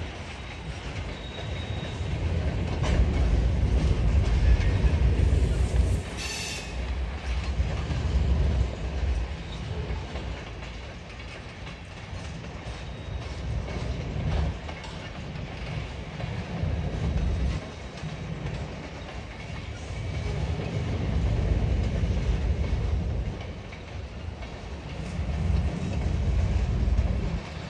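Freight cars, covered hoppers and tank cars, rolling past at a grade crossing: a low rumble with wheels clicking over rail joints, swelling and fading as the cars go by. A brief high-pitched squeal about six seconds in.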